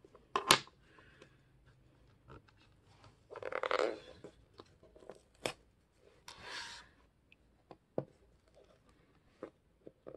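Dried binding glue being peeled and torn off the glued spine of a book by hand: a sharp snap about half a second in, then two crackling tears and scattered small clicks.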